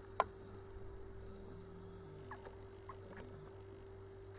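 Quiet room tone with a faint steady hum, a single sharp click about a quarter second in, and a few faint light ticks after it.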